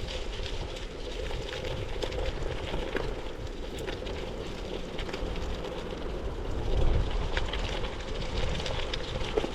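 Wind rumbling on the microphone with scattered light crackles, as from bicycle tyres rolling along a dirt farm path.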